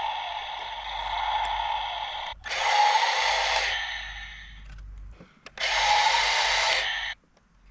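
Motorized toy CAT excavator running, its small electric motor driving the boom. It grows louder twice, about two and a half and six seconds in, and cuts off suddenly shortly before the end.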